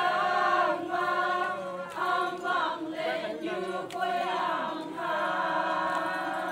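A group of women singing a Naga folk song together in chorus, in short phrases of held notes with brief breaks between them.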